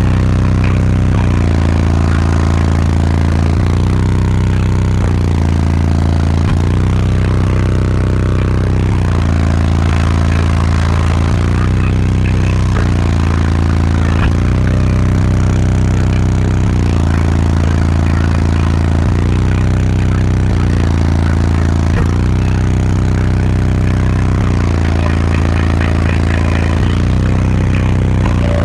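A competition car-audio system of six Sundown NSv3 12-inch subwoofers on six Sundown NS-1 amplifiers, playing bass-heavy music at extreme level inside the vehicle. The bass note changes every couple of seconds, and the sound is heavily distorted and rattly.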